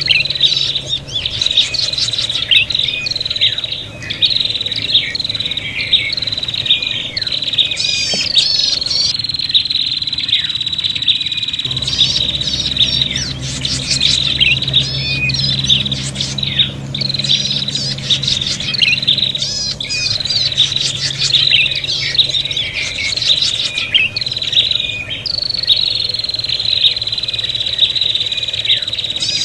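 Prinias (prenjak) calling excitedly in a noisy, fighting-style chorus of the kind used to lure them: rapid runs of sharp chirps and quick downward-sweeping notes over a steady high whine.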